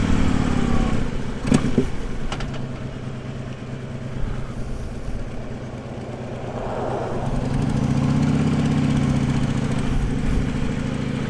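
Harley-Davidson motorcycle engine running on the move, heard from a mic inside a helmet with the visor closed. It eases off midway and builds again from about seven seconds in, with two brief knocks about two seconds in.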